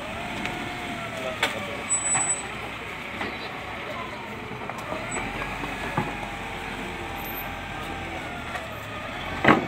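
Wheel loader's diesel engine working as it manoeuvres, with a whine that glides up and down in pitch. Scattered knocks throughout, and a loud clank near the end.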